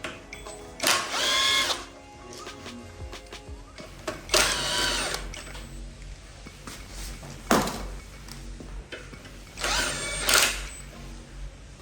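Power drill run in three short bursts of about a second each, its motor pitch rising as it spins up, with a single sharp click between the second and third bursts.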